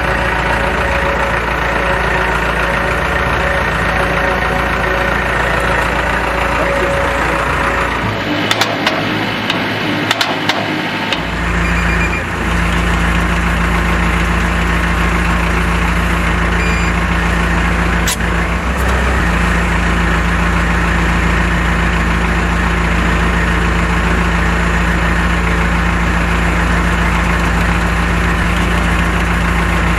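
Diesel engine of a VMP Bull SLM 4000 self-loading concrete mixer running steadily. About eight seconds in, the deep engine sound drops away for roughly three seconds with a few clicks and knocks, then it runs steadily again.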